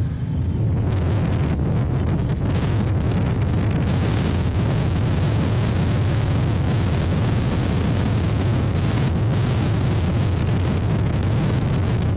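Strong wind buffeting an outdoor webcam's microphone: a steady low rumble with a gusting hiss over it that picks up about a second in.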